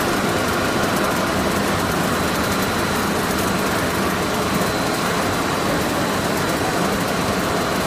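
Snack pellet production line machinery running in a factory: a steady, even mechanical noise with a faint high whine held throughout.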